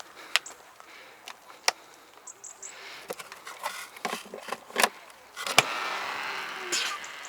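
Clicks and knocks of a foam cannon being handled and snapped onto a pressure washer gun's quick-connect. About five and a half seconds in, a sharp click is followed by a steady spraying hiss with a low motor hum: the cordless Ryobi pressure washer running and spraying foam through an MTM PF22 foam cannon.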